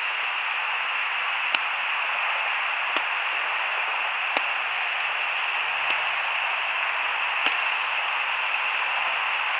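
A wooden stick whacking a hanging burlap sack, about six sharp hits roughly one and a half seconds apart, over a steady hiss.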